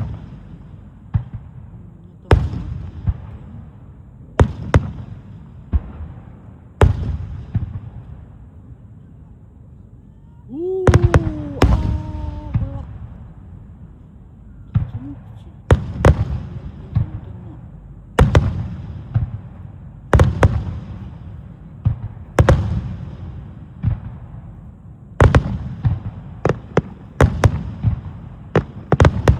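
Wide starmine fireworks display: a rapid series of aerial shell bursts, sharp bangs every second or two, each trailing off, with a dense volley about eleven seconds in and the bangs crowding closer together near the end.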